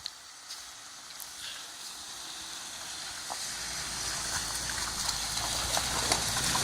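A vehicle approaching on an unpaved forest track: tyre and gravel noise growing steadily louder, with a few small clicks, and the low hum of its engine coming in about halfway through.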